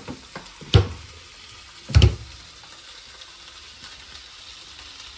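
Potatoes and vegetables frying in mustard oil in a kadhai, a steady sizzle, with two sharp knocks about one and two seconds in.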